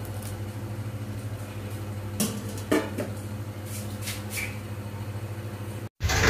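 Light clinks and a knock of a plate against a large steel cooking pot, twice between about two and three seconds in, over a steady low hum; the sound cuts off abruptly just before the end.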